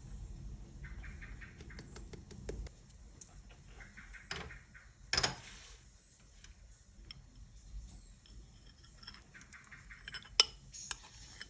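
Kitchen utensils and dishes being handled during baking prep: light clinks and short scrapes, with two sharper clinks, the loudest near the end.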